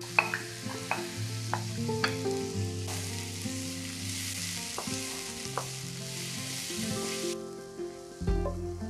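Diced zucchini sizzling as it is stir-fried in a frying pan, with a wooden spatula clicking and scraping against the pan now and then. The sizzling stops about seven seconds in.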